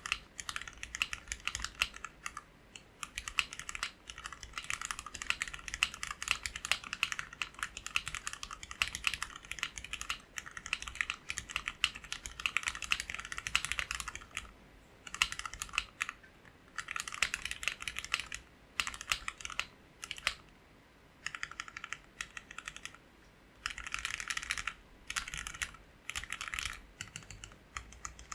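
Typing on a custom 60% mechanical keyboard with Gateron Black KS-3 linear switches spring-swapped to 62 g, PBT keycaps, a polycarbonate plate and O-ring gasket mounting in an acrylic case: fast runs of key strokes broken by short pauses, with a longer lull about two thirds of the way in.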